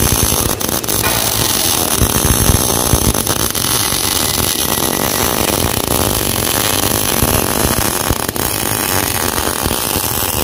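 Steady running noise of machinery in a steel fabrication shop, with a few sharp clicks.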